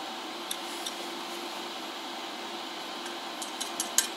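Stick welding set humming steadily; from about three and a half seconds in, a quickening run of sharp crackles as the electrode is scratched on the steel bar and the arc starts to strike.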